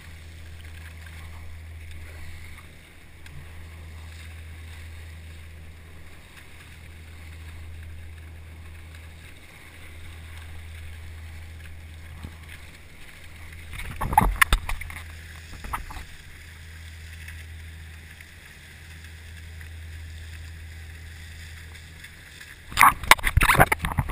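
Water from a dredger's wake rushing along a surfski's hull, over a steady low engine drone from the dredger running alongside. Loud splashes hit the bow-mounted camera about fourteen seconds in and again near the end.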